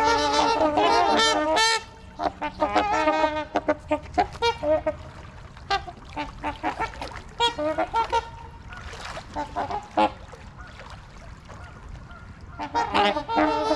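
Trumpeter swans calling: many overlapping horn-like honks. There is a loud chorus at the start, scattered calls through the middle, and another loud chorus near the end.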